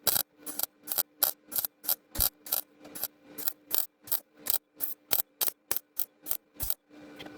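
A steady series of sharp mechanical clicks, about three or four a second, over a faint steady hum; the clicking pauses briefly near the end.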